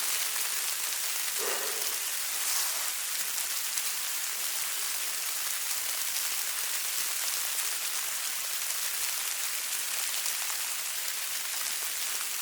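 Snow falling steadily, an even fine hiss and patter, with one soft brief thump about a second and a half in.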